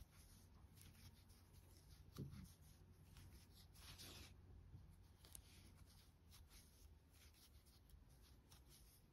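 Near silence, with faint rubbing and soft brushing of aran yarn being drawn through stitches with a metal crochet hook as single crochet stitches are worked.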